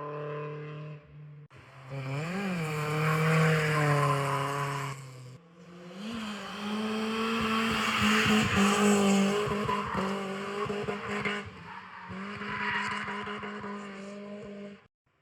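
AI-generated car sound meant to imitate a BMW E36 1.8is: an engine note mostly holding its pitch, with brief rises and falls, under a loud hiss. It comes in several segments that break off abruptly, the last cutting out near the end.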